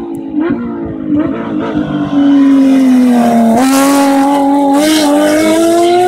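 Porsche 997 GT3 rally car's flat-six engine under hard acceleration, growing much louder about two seconds in as it nears; the engine note sags a little, then from about three and a half seconds in climbs steadily in pitch.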